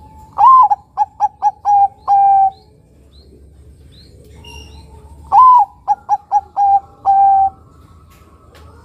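Zebra dove (perkutut, a Bangkok–local cross) cooing its song twice, about five seconds apart. Each phrase is a loud rising-and-falling opening coo, four short quick notes, then a longer held final note.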